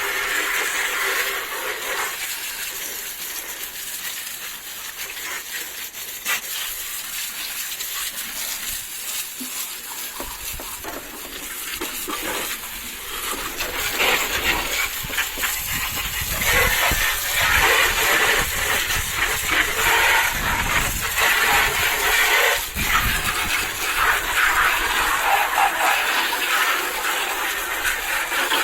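Garden hose spraying water over the car, a steady hiss of water hitting the bodywork that gets louder about halfway through.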